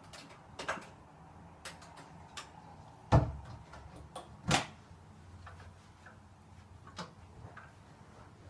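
Scattered clicks and knocks of a record player being handled, with two louder knocks about three and four and a half seconds in.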